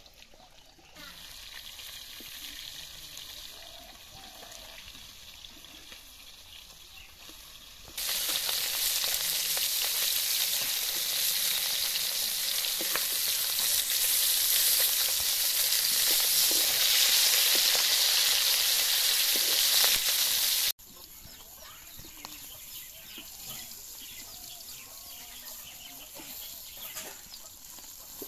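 Turmeric-coated mrigal carp pieces sizzling loudly as they fry in oil in an iron kadai, with occasional scrapes of a steel spatula. The sizzle comes in suddenly after several seconds of quieter background and cuts off sharply about two-thirds of the way through.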